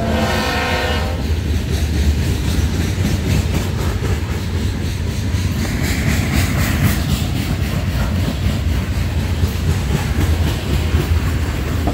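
Florida East Coast freight train rolling past close by: a locomotive horn sounds briefly and cuts off about a second in. Then comes the steady rumble of hopper cars going by, with the wheels clicking regularly over the rail joints.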